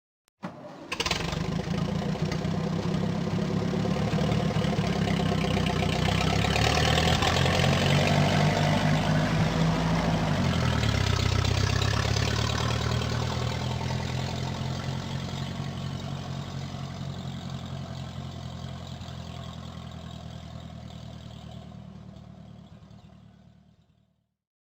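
Cartoon tractor engine sound effect: a short click, then the engine starts and runs with a rapid chugging beat. It rises in pitch until about ten seconds in, drops back, then fades away slowly until it stops just before the end.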